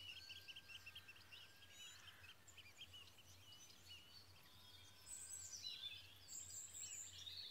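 Faint birdsong from several songbirds in a dawn chorus. A quick run of short repeated chirps fills the first few seconds, with thin drawn-out whistles and high thin notes about five to six seconds in.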